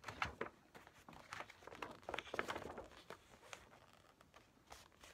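Paper rustling and crinkling in short irregular bursts with a few light clicks, as a folded poster is taken out of a CD album package.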